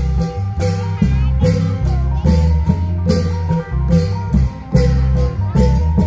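Isan klong yao (long-drum) band music: a steady drum beat, about two strokes a second, under a plucked-string melody.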